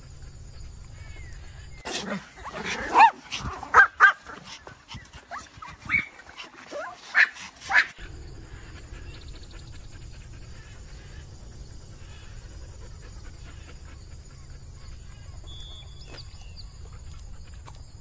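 A dog barking and yelping in a quick run of sharp calls, some bending in pitch, for about six seconds starting two seconds in. After that only a steady low hum remains.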